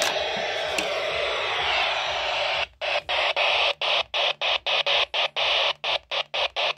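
Static hiss from a Eurosonic Ultimate 80-channel CB radio's speaker. From a little under three seconds in, the hiss cuts out briefly about four times a second as the channels are stepped up one after another.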